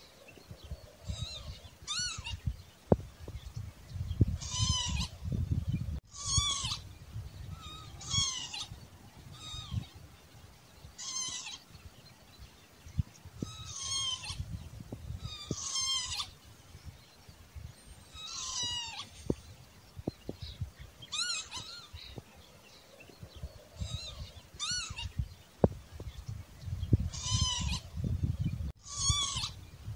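Northern lapwing calling over and over: about twenty wheezy calls, each rising then falling in pitch, one every second or two. A low rumble comes and goes underneath.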